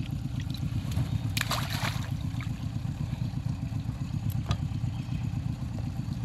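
Boat's outboard motor running steadily at low throttle, with a brief noise about one and a half seconds in.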